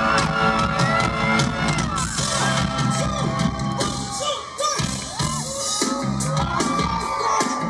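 Loud live band music from a big outdoor festival stage, heard from within the crowd, with fans screaming and whooping over it.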